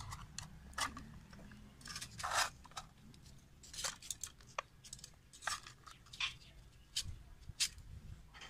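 Metal fork scraping cooked beef tikka pieces off steel skewers onto a plate: a string of irregular short scrapes and clinks, a few of them longer scrapes.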